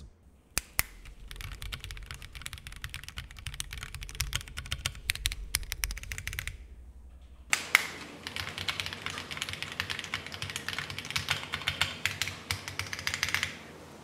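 Typing on a stock Monsgeek M1 aluminium-case mechanical keyboard. There are two runs of rapid key clacks with a pause of about a second between them. The unmodded board sounds a little pingy and rattly.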